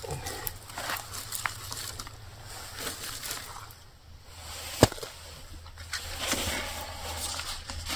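Campfire being started and fed: rustling and handling of wood and kindling with scattered crackles and clicks, and one sharp snap a little before five seconds in.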